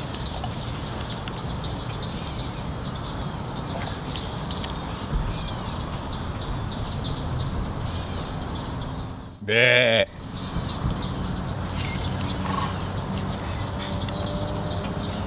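Insects trilling in a steady, high-pitched chorus with an even rapid pulse. A man's short 'Yeah' breaks in briefly a little after the middle.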